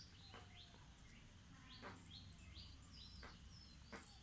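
Faint bird chirps, short high notes repeated several times a second, with a few soft clicks among them.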